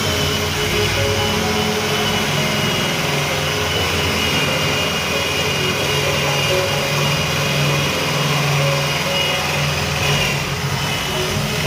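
Electric hand drill running steadily under load, its bit boring the lock mortise into the edge of a wooden door through a clamped mortising jig.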